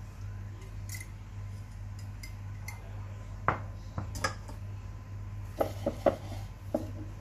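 Kitchen utensils and dishes clinking and knocking, a few sharp separate clinks midway and a quick cluster of them later, over a steady low hum.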